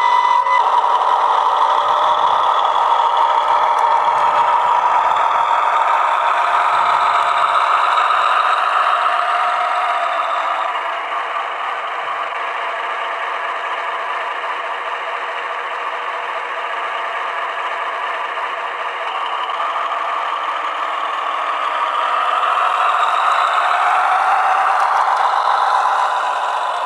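Simulated diesel engine sound from a Massoth sound decoder, played through the speaker of a G-gauge USA Trains diesel switcher as it runs. The engine sound is louder at first, settles lower after about ten seconds, and swells again near the end. A held tone stops about half a second in.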